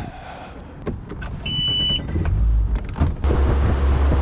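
A short, steady, high electronic beep about one and a half seconds in. Then a boat motor comes on with a steady low hum that gets louder about three seconds in.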